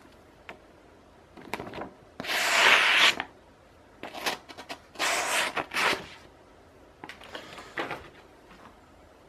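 Plain-edged Buck pocket knife on its factory edge slicing through a sheet of paper: a few hissing cutting strokes, the two longest about a second each, with shorter scrapes between.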